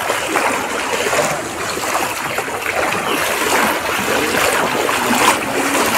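Floodwater sloshing and splashing steadily as someone wades through it.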